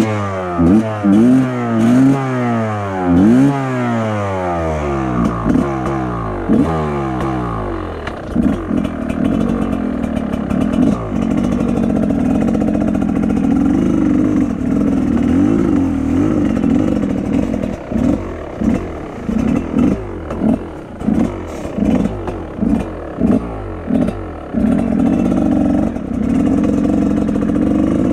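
Enduro motorcycle engine revving up and down in quick bursts for the first several seconds, then running more steadily, with a string of short, regular dips in engine speed in the second half.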